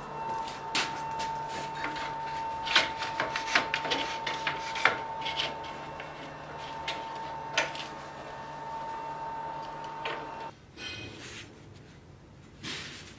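Sharp metal clicks and scrapes from steel tongs and the freshly quenched steel machete blade being handled at a bench vise, over a steady machine hum with a high whine. The clicks come thickest a few seconds in, and the hum stops suddenly about ten seconds in.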